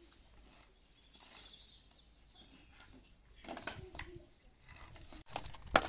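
Faint bird chirps, then from about halfway a run of light clacks and knocks of sticks of firewood being handled and laid for a fire, with one sharp knock near the end.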